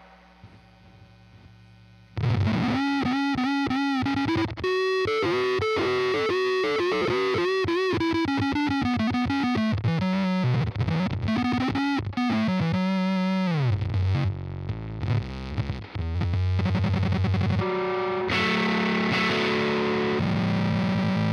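Electric guitar played through an EarthQuaker Devices Bit Commander analog octave synth pedal, giving a fuzzy, synth-like line. After about two seconds of near silence, single notes slide up and down in pitch, and the sound grows thicker near the end.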